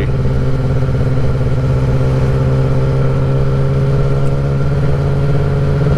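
Kawasaki ZX-10R's inline-four engine, fitted with a Graves race exhaust, running at a steady cruising speed. Its pitch holds level throughout, neither revving up nor slowing.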